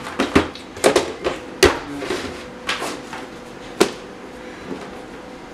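Gear being taken out of a pack and handled: a run of knocks and clatters as items are picked up and set down, with single louder knocks about a second and a half in and near four seconds, then quieter rustling.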